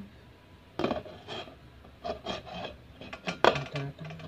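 A glass pot lid with a metal rim clinking and scraping against the rim of a metal cooking pot as it is handled and set back on. It makes a run of irregular clinks, and the loudest knock comes about three and a half seconds in.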